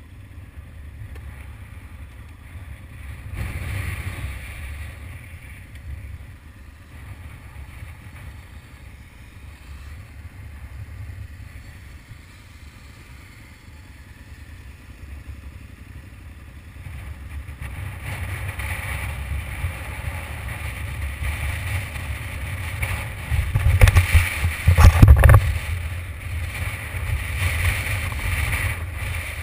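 Motorcycle running as it rolls slowly, with wind rumbling on the camera microphone. The rumble grows louder in the second half, and a couple of loud wind buffets hit about three quarters of the way through.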